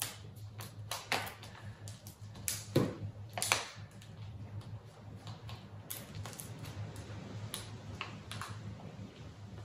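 Hands handling folded paper strips with gold foil and double-sided tape: light crinkles, taps and clicks, with a few louder crackles between about two and a half and three and a half seconds in.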